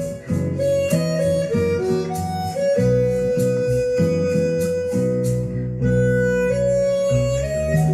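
Harmonica playing a slow melody of long held notes over a plucked guitar accompaniment.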